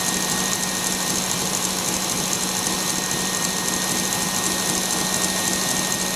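KitchenAid Artisan stand mixer running steadily at speed, its motor giving a constant hum as the whisk beats strawberry purée and egg white while hot sugar syrup is streamed in.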